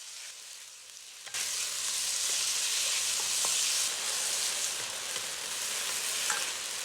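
Sliced, marinated chicken breast sizzling in hot oil in a pan as it browns. The sizzle starts suddenly about a second in, as the chicken goes into the oil, then holds as a steady hiss with a few light clicks from stirring.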